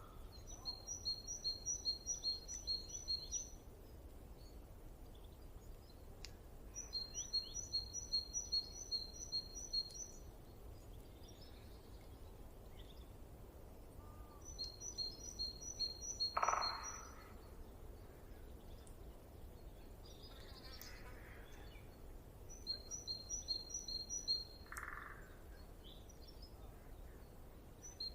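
A songbird repeating a quick phrase of about ten high chirps lasting around three seconds, four times, with short lower calls about halfway through and near the end, over a steady low background hiss of wind.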